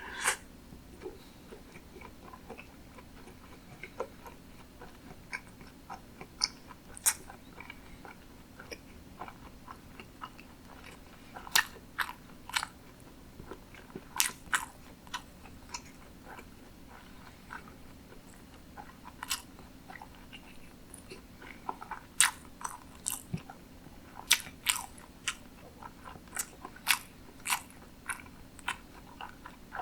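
Close-miked chewing of sushi, with short sharp mouth clicks and smacks at irregular intervals, thicker in the second half.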